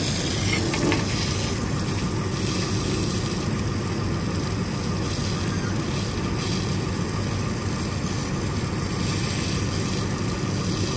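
An engine idling steadily, mixed with the hiss of a garden hose spraying water into a motorhome's open service bay.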